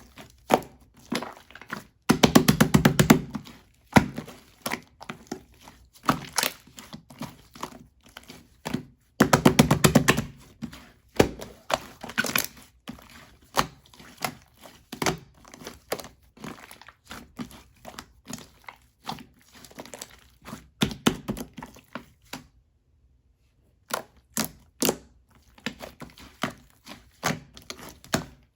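Clay-mixed slime being squished and pressed by hand, giving rapid sticky clicks and small pops, with two denser bursts of crackling at about two and nine seconds in and a brief pause near the end.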